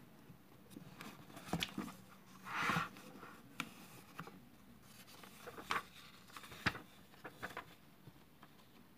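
Pages of a hardcover book being turned and handled: a paper swish of a page turning about two and a half seconds in, with scattered light taps and rustles of fingers on the paper.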